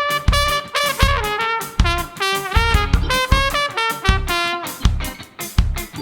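Trumpet solo over a ska band's drums and rhythm section: a single line of quick, changing notes, with regular drum hits underneath.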